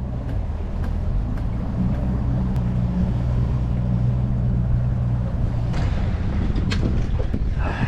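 Boat engine running steadily under way. About five and a half seconds in, its steady hum gives way to rougher rushing noise with a few sharp knocks.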